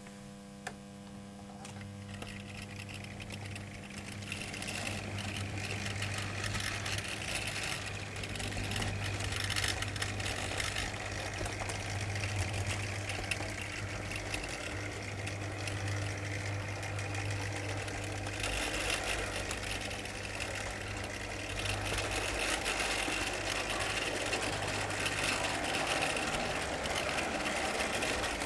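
HO-scale model train running, heard from the flat wagon it pulls: a small electric motor's steady whir with the wheels rattling and clicking over the rail joints, above a low hum. It grows louder over the first few seconds.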